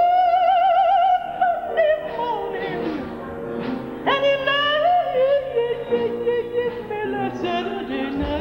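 A woman singing in a high, operatic voice with a wide vibrato: she slides up into a long held note, breaks off, then holds a second note from about four seconds in, over a steady backing accompaniment.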